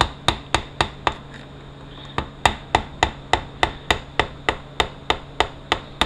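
Quick, evenly spaced hammer taps on metal, about four a second with a short pause about a second in. The broken overdrive servo snap ring of a 4R70W transmission is being driven around in its groove.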